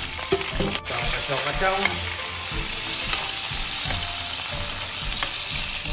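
Sliced onions, ginger, lemongrass and curry leaves sizzling steadily in hot oil in an electric wok while a spatula stirs them. This is the spices being fried until fragrant.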